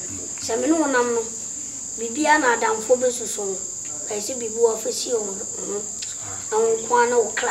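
Crickets trilling in one steady, unbroken high-pitched tone beneath a man and a boy talking.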